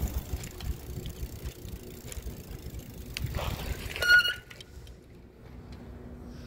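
Bicycle rolling over rough pavement, with a jittery rumble and knocking, then a brief high-pitched brake squeal about four seconds in. After that it is quieter, with a faint steady low hum.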